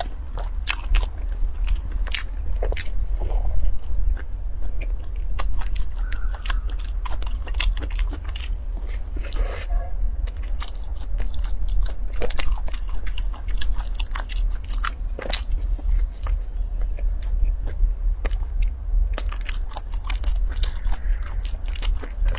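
Close-miked eating: biting into and chewing a soft bun covered in fluffy floss topping, with many small sharp mouth clicks and crackles. A steady low hum runs underneath.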